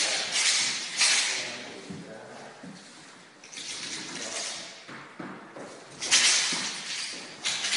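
Shakujo, the monk's staff with metal rings on its head, swung through a form: its rings rattle and the staff swishes in repeated bursts, the loudest about six seconds in.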